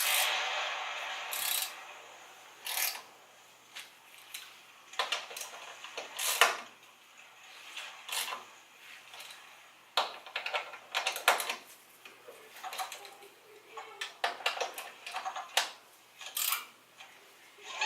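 Irregular metallic clinks and clicks of winch mounting bolts, nuts and hand tools being handled while a winch is bolted to its mounting plate.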